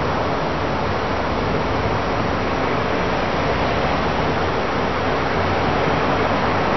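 Steady, even hiss of background noise, with no distinct events and no change in level.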